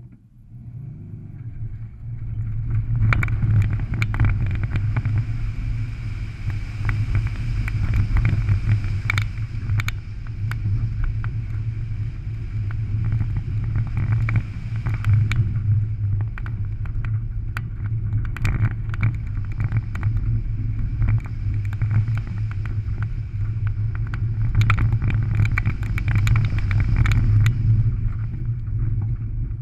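Rallycross car launching from a standstill and driven hard over a dirt and gravel course: the engine running under load with a heavy low rumble, rising over the first few seconds, and many sharp pings of loose stones striking the car's body.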